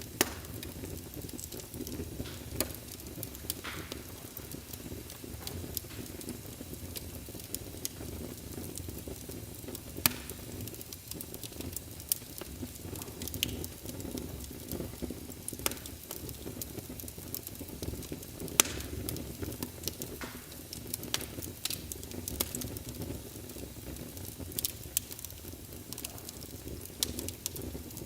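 Fire burning in a fireplace, crackling steadily with irregular sharp pops over a low, even rumble.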